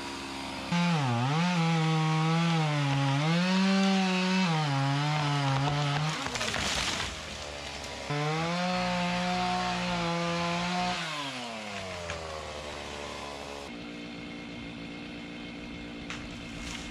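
Two-stroke chainsaw revving high in two cuts through branches and small trees, the pitch wavering and dipping as the chain loads up in the wood. A short burst of noise comes between the two cuts, and then the saw drops back to a steady idle.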